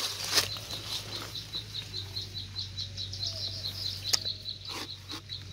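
A knife cutting into a jackfruit's rind, a few short sharp cuts and scrapes. A steady high chirping at about seven pulses a second runs underneath.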